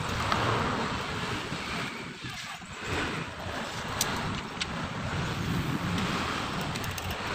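Steady background noise with a few light, sharp clicks, the clearest about four seconds in, as the steel cable of a power-window regulator is threaded through its slider by hand.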